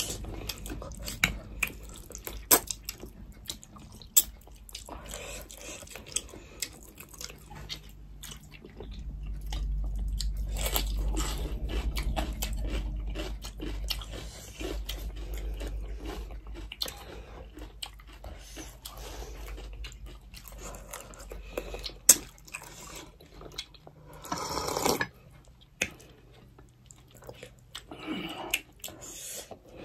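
Two people eating rice and fish soup by hand close to the microphone: chewing, with many small mouth clicks. A low rumble runs for several seconds in the middle, and there is one sharp click later on.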